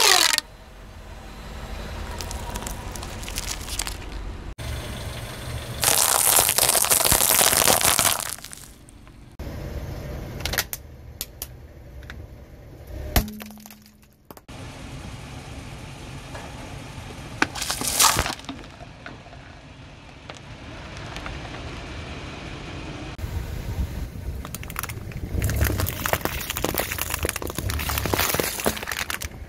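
Brittle objects cracking and breaking as a car tyre rolls over them, in several separate bursts of crunching over a low rumble; the loudest come about six to eight seconds in, once around eighteen seconds, and again near the end.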